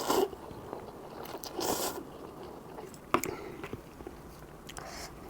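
Close-miked eating of cup ramen noodles: chewing and mouth sounds, with two longer noisy bursts in the first two seconds and a sharp click about three seconds in.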